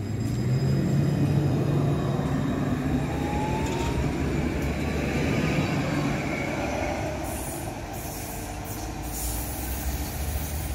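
C2-class Citadis tram moving off from a stop and drawing away: a low hum and rumble of the wheels on the rails, loudest just after it starts moving, with a whine rising in pitch about three to six seconds in as it gathers speed.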